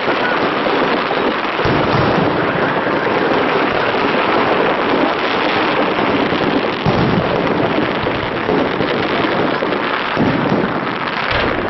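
Fireworks display: a dense, continuous crackling of many shells bursting at once, with a few louder bangs standing out.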